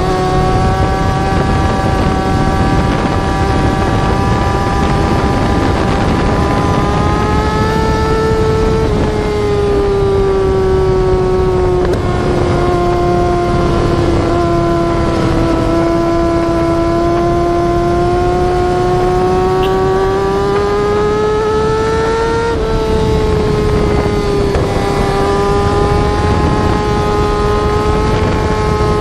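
Yamaha R6 inline-four sportbike engine running at high revs and held there. Its pitch falls slowly to a low point about halfway through, climbs again, drops briefly a little past two thirds of the way, then rises once more.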